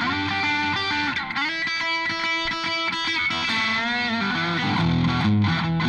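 Les Paul electric guitar played through a Vox VT20X Valvetronix modelling amp on one of its factory presets. It plays held, ringing chords that are struck again and again, then a bent note, and then a riff on the low strings in the second half.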